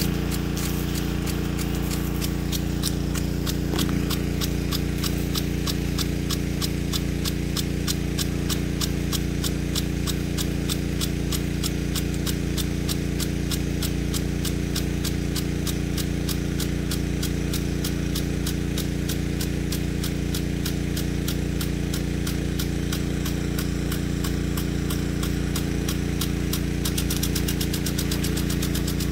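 Weathertec 10-67 impact sprinkler running, its drive arm clacking in a rapid, even ticking against the water jet, with the ticks louder near the end. Under it runs the steady low drone of the pump feeding the sprinkler.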